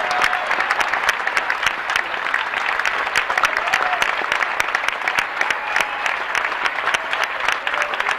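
Concert audience applauding steadily, a dense run of many overlapping hand claps, in the break before the encore.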